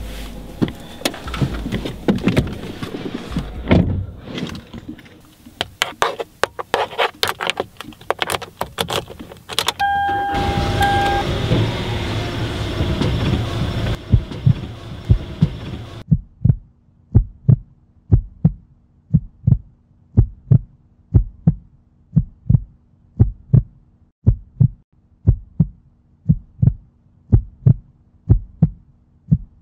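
Keys clicking and jangling at a car's ignition, a short steady chime, then the car's engine starting and running. After that comes a steady single thump about every three-quarters of a second over a low droning tone.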